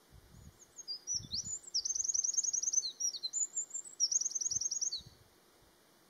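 Eurasian wren singing one long song of about five seconds: high, rapid warbles and trills, with two fast rattling trills, the second about four seconds in.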